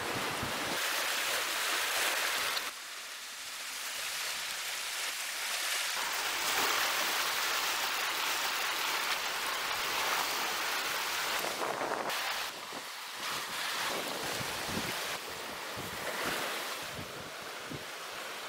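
Sea waves and wind on the microphone: a steady rushing hiss that changes level abruptly a few times, with faint clicks in the later part.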